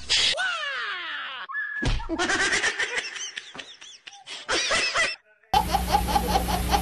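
Several short clips in a row: first a few quick falling glides in pitch, then a jumble of short sounds, then, about two-thirds in, a baby laughing in quick repeated bursts.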